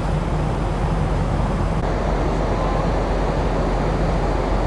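Large car ferry's engines and propellers working as the ship pulls away from the berth: a steady low rumble and hum under a wash of noise.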